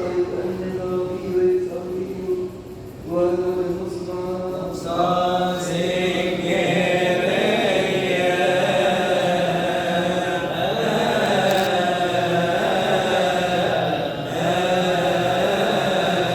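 A man chanting the Gospel in the Coptic liturgical style: long held, ornamented notes that waver up and down, with a short breath break about three seconds in.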